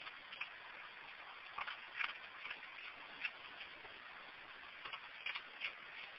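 Raccoon crunching dry cat food kibble out of a dish: irregular sharp crunches and clicks, about two a second, over a steady hiss.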